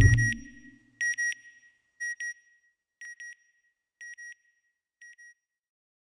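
A deep rumble dies away in the first half second. Then comes a high electronic double beep, repeated about once a second five times and growing fainter each time, like a fading sonar ping.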